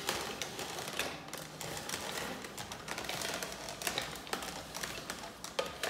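Hand-cranked plastic auger juicer grinding fresh ginger root: the crank turning and the auger crushing the fibrous root with an irregular run of clicks and crackles.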